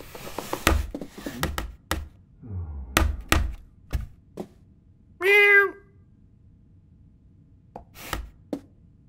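A cat's food bowl knocking and clattering along the floor as the cat pushes it, a string of thunks over the first four seconds or so. Then one short meow about five seconds in, and a few light knocks near the end.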